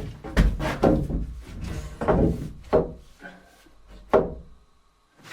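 Wooden boards being handled: a series of hollow wooden knocks and thumps with some rubbing, about half a dozen, the last and sharpest about four seconds in.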